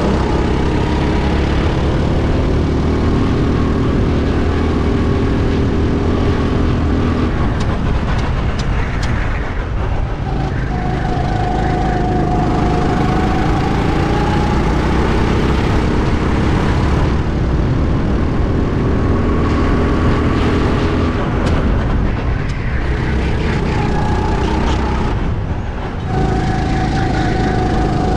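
Go-kart engine heard on board at racing speed. Its note falls as it slows for corners, about ten seconds in and again near the end, and climbs back as it accelerates out.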